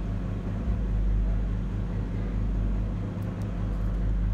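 Steady low machine hum with a fast, even throb.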